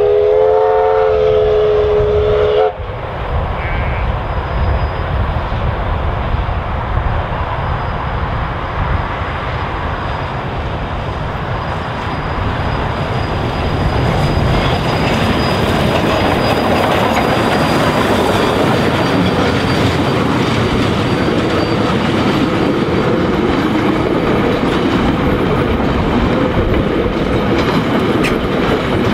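Ka-class 4-8-4 steam locomotive sounding its whistle once, a single pitched blast that slides up slightly as it opens and cuts off sharply after about two and a half seconds. The locomotive and its train of carriages then run past, a steady rumble with wheels clicking over the rail joints, growing louder about halfway through as the train comes close.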